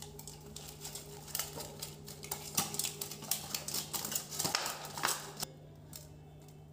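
A hand rubbing salt and turmeric into slit brinjals in a stainless steel bowl: a quick run of small clicks, squelches and rustles as the brinjals are turned and knocked against the bowl, stopping about five seconds in. A steady low hum runs underneath.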